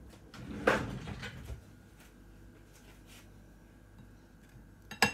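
A kitchen drawer being opened and shut with a short clatter about a second in, then a single sharp knock near the end.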